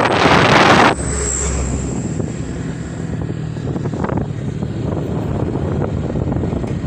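Motorbike ride heard from the rider's seat. Heavy wind buffeting on the microphone cuts off about a second in, leaving the engine running steadily under a lighter rush of wind.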